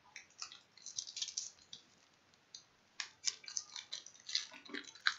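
Foil trading-card pack being torn open, the wrapper crinkling in short crackles, in two spells with a lull a little under halfway through.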